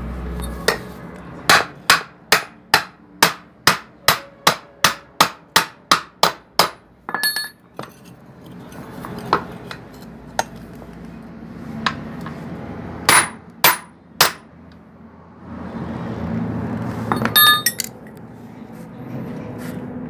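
Hammer blows on steel while the centre support bearing is being fitted onto a Mahindra TUV300 propeller shaft. A steady run of about three sharp strikes a second lasts around five seconds, followed by a handful of scattered single blows.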